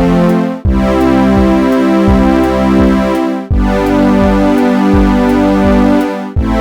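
Background music: synthesizer and keyboard chords over a steady low beat, dropping out for a moment about every three seconds.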